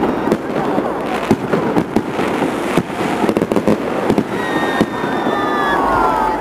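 Fireworks display going off: a dense run of sharp bangs and crackles, with a high falling whistle in the last two seconds.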